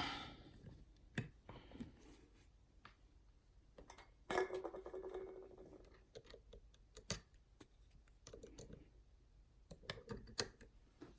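Scattered small, faint clicks and a brief rattle of handling as a dimple lock is locked up with its key and readied for picking.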